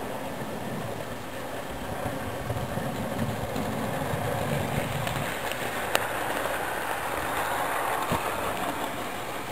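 00 gauge model diesel locomotive and coaches running past on the track: a steady motor hum and wheels rumbling on the rails, growing louder as the train comes by, with a couple of sharp clicks.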